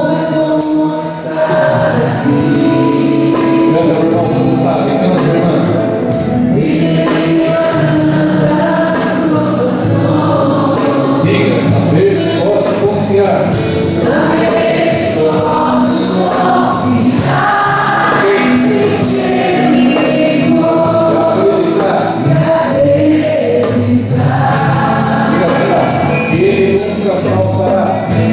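Christian worship song: a group of voices singing together over band accompaniment, with a steady percussion beat.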